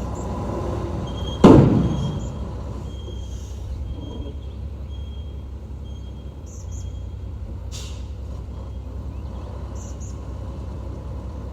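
Heavy earthmoving machine engine running steadily, with one loud bang about a second and a half in that dies away quickly.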